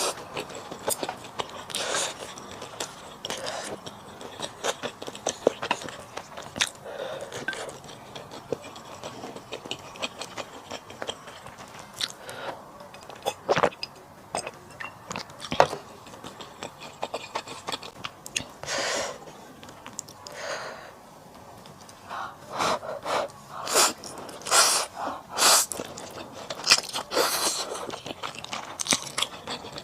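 Close-miked eating sounds from a person eating: chewing and mouth noises, irregular sharp clicks of utensils, and a few louder breathy bursts.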